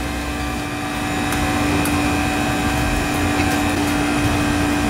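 Steady ventilation hum carrying one constant droning tone, with a few faint clicks over it.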